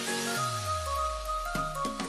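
Short outro music: several held notes over a low tone that slides steadily downward from about half a second in.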